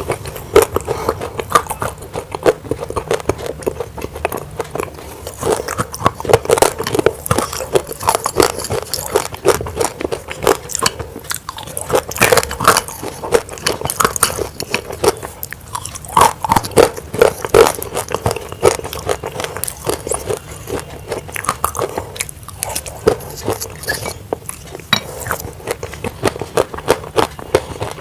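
Close-miked chewing of crunchy grey clay: a steady run of sharp, brittle crunches and crumbling as the clay is bitten and chewed.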